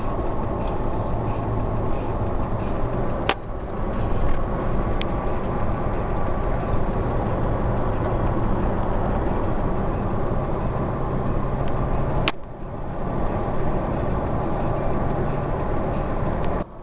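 Steady road and engine noise heard inside the cabin of a moving car, with a low hum, broken by a couple of sharp clicks about three seconds in and again near twelve seconds.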